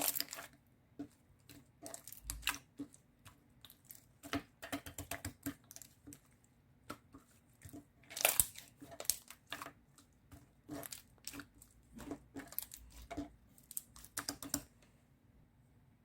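Irregular light taps and clicks with brief crinkling and rustling, like small objects and paper or plastic being handled.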